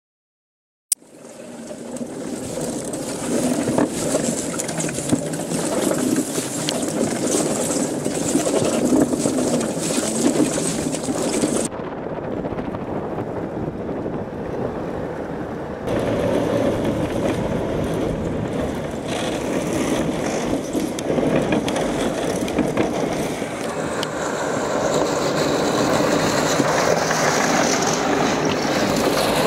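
Ziesel tracked electric off-road wheelchairs driving fast on a paved road: a steady rumble of rubber tracks and rushing noise from the moving camera. It starts with a click about a second in, and the high part of the noise drops away for about four seconds near the middle.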